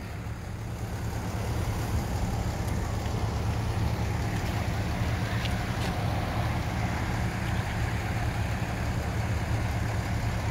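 Steady low engine hum, like a vehicle idling, under a haze of outdoor background noise; it grows a little louder over the first couple of seconds and then holds steady.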